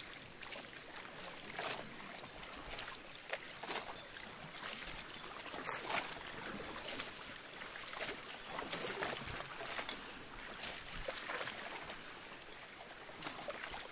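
Water lapping and splashing irregularly against the hull of a boat moving across choppy sea.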